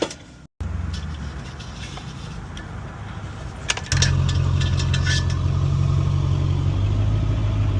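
An engine running steadily at idle, getting louder about four seconds in, with a few light clicks of handling.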